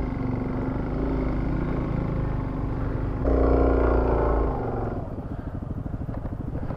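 Suzuki DRZ400S single-cylinder four-stroke engine running as the bike rides along a dirt trail, heard from on the bike. The throttle opens and it grows louder a little past midway, then eases off so the separate firing pulses can be heard near the end.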